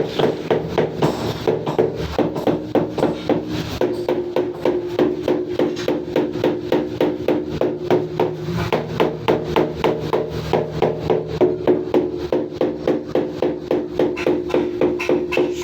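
Rapid, even hammer blows, about four or five a second, over background music with held notes.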